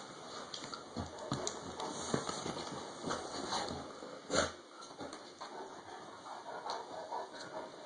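A dog scrambling about on a bed, with rustling bedding and irregular bumps of its paws and body, and one louder thump about four and a half seconds in.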